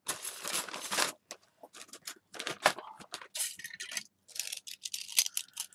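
Small antique bronze iron filigree pieces being handled and set down on a card: about a second of rustling and sliding, then a string of light metallic clinks and taps.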